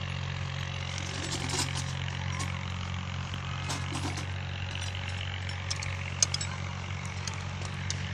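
An engine running steadily at idle with a low hum, while light metallic clicks and knocks come and go.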